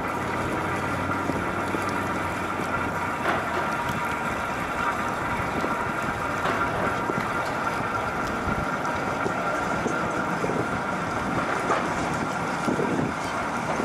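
Steady drone of engines or machinery under a wash of wind noise on the microphone, even throughout with no distinct events.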